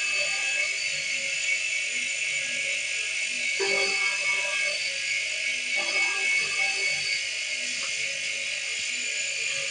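A bench-mounted electric drill motor runs steadily with a high whine while holes for the straps are drilled through a rubber flip-flop sole. The sound swells briefly a couple of times, about four and six seconds in.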